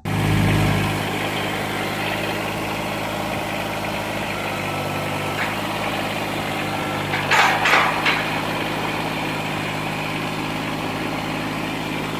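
An engine idling steadily, with a brief cluster of higher-pitched sounds about seven seconds in.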